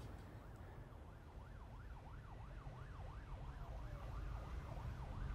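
Faint emergency-vehicle siren, its pitch rising and falling rapidly about two or three times a second and growing slowly louder, over a low rumble.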